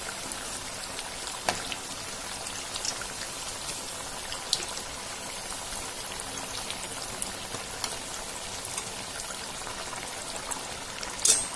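Mysore bondas deep-frying in hot oil: a steady sizzle with scattered small pops and crackles, and a brief louder click near the end.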